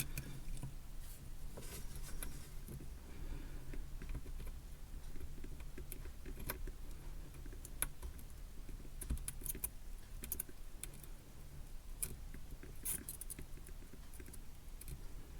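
Scattered light clicks and taps of small tools and wire ends being handled against a small circuit board while wires are soldered onto its pads, some in quick little clusters, over a low steady hum.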